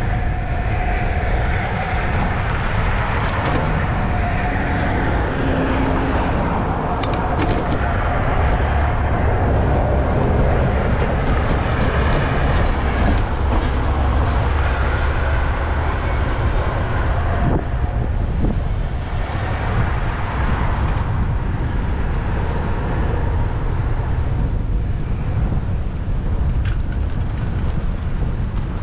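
Steady rumble of wind on the microphone of a moving bicycle, mixed with city street traffic noise, with a few faint clicks along the way.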